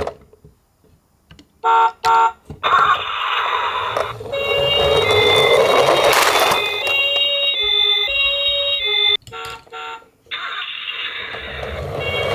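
Electronic toy ambulance siren playing a tinny two-tone 'pee-po' call that alternates about once a second over a rushing noise. Each run of the siren is preceded by two short beeps, and it pauses briefly about nine seconds in before starting again.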